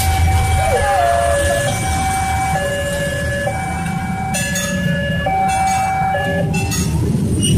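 Railway level-crossing alarm: an electronic siren alternating between a higher and a lower note, each held a little under a second, over a low traffic rumble. The two-tone pattern stops near the end, and a few sharp clinks are heard in the second half.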